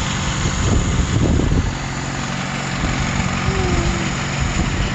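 Heavy farm machinery engine running steadily, with a louder rumble about a second in.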